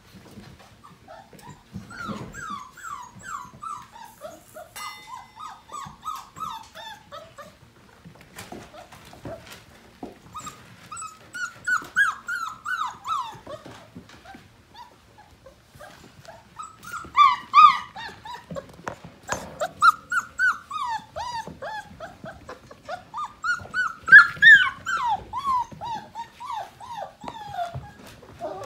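Five-week-old Portuguese Water Dog puppies yipping and squealing as they play-fight, in runs of short, high, falling cries that come in four bursts, the loudest around the middle and near the end. Scattered light knocks between the bursts.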